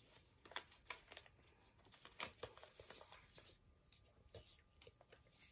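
Faint, irregular rustling and crinkling of square origami paper being folded and creased by hand, with several soft crackles scattered through.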